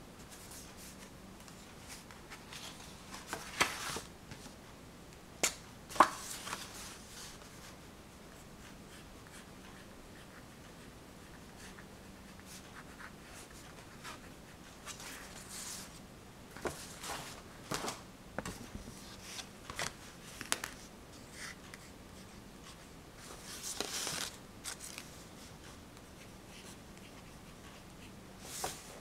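Small handling sounds: scattered light clicks, taps and scratchy rustles, in clusters, with a sharp click about six seconds in as the loudest. A faint steady hum runs underneath.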